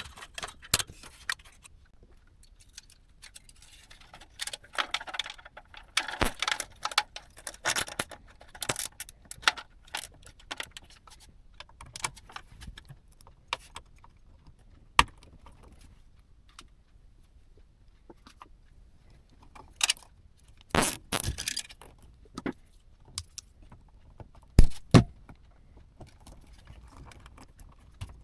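Small metal parts and hardware being handled during PC assembly: irregular clicks, clinks and rustling, with a louder cluster of clatter about two-thirds of the way through and two sharp knocks soon after.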